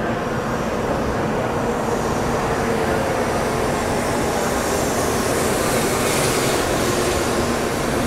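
N700-series Sakura Shinkansen train pulling slowly into the platform and gliding past, a steady rushing noise that swells and brightens a little past the middle as the cars go by.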